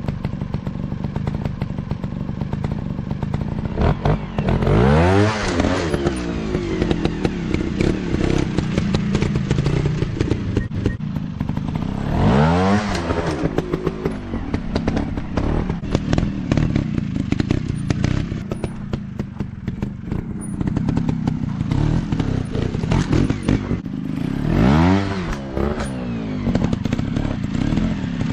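Small trail dirt bike engines running, with the engine note rising and falling three times as a rider revs, about five, twelve and twenty-five seconds in. Knocks and clatter run under the engine sound throughout.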